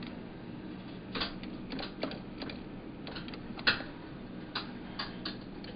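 Claw machine running: an irregular string of clicks and knocks as the claw drops among the spiky balls and closes on one, the sharpest knock a little past halfway, over a steady low machine hum.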